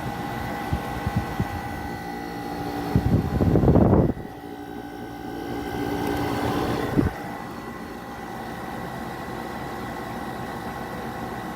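Haier window air conditioner running with a steady hum while its control knobs are turned: a few small clicks, a loud rushing surge that cuts off sharply about four seconds in, then a second swell that ends with a click about seven seconds in, leaving a quieter steady hum.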